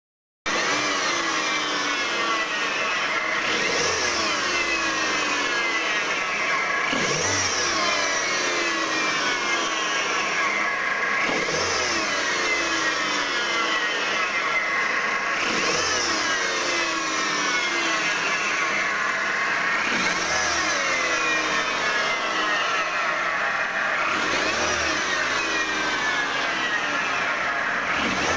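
Peugeot engine running with an abnormal noise from around the engine: a steady mechanical noise with a pitch sweep that repeats about every four seconds.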